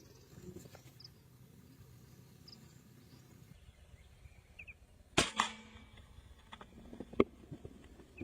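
A single air rifle shot about five seconds in, a sharp crack with a second crack close behind it, then a couple of sharp clicks. Faint bird chirps come before the shot.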